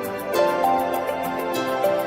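Gentle instrumental background music with a light, regular beat.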